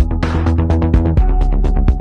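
Dark electronic music: rapid, evenly spaced percussive ticks over sustained deep bass tones, with the low chord shifting a little past halfway.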